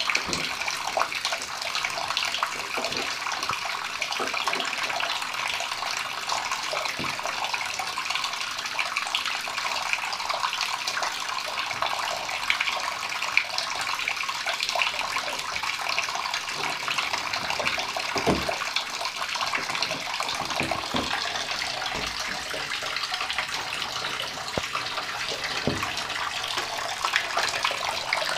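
Tap water running steadily into a bathtub, with a few light knocks and splashes from a young raccoon playing in the water.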